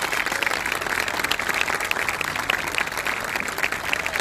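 A crowd applauding, many hands clapping at an even, steady level.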